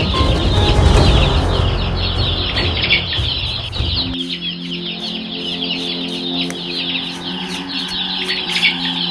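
A dense chorus of many birds chirping rapidly and continuously, over background music. A heavy low rumble under it cuts off suddenly about four seconds in, leaving sustained low notes.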